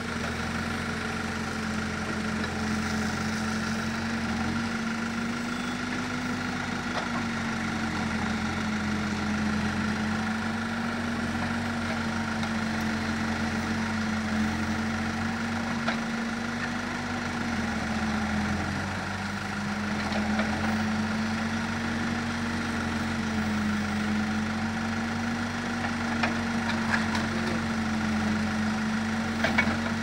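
New Holland backhoe loader's diesel engine running steadily while the backhoe arm digs, its pitch rising and dipping slightly as the hydraulics take load, with a steady higher whine above it. A few sharp knocks come near the end.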